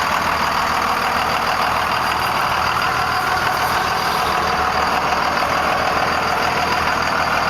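1998 Dodge Ram 2500's 5.9-litre inline-six Cummins turbo diesel idling steadily.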